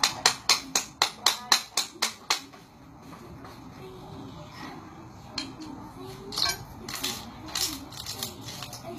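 A quick run of about ten sharp clicks, pieces of jade knocked against each other, at roughly four a second, stopping about two and a half seconds in; a few lighter clinks follow.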